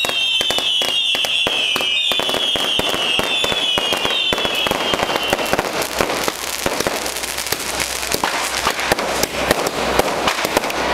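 Firecrackers and fireworks going off in a rapid, dense string of sharp cracks and bangs at the burning of a falla. A high whistling tone that slides down again and again runs through the first five seconds.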